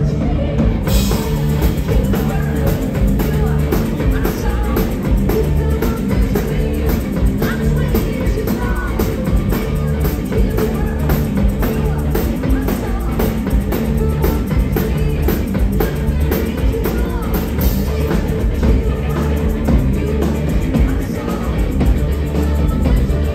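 Live rock band playing a song: a woman's lead vocal over electric guitar, drum kit and shaken percussion, with the cymbals coming in about a second in and keeping a steady beat.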